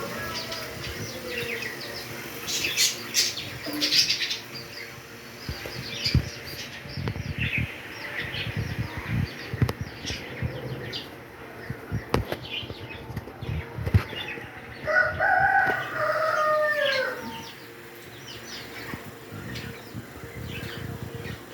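Pet parrot flapping its wings and giving short chirps and clicks, then a whistled call of about two seconds, around fifteen seconds in, that drops in pitch at its end.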